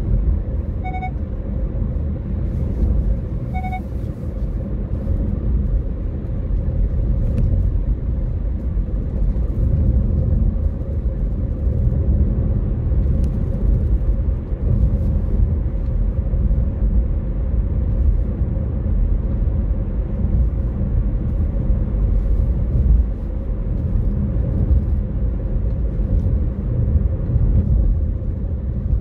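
Steady road and engine rumble of a car driving, heard through a dashcam. Two short electronic beeps sound about a second in and again under three seconds later.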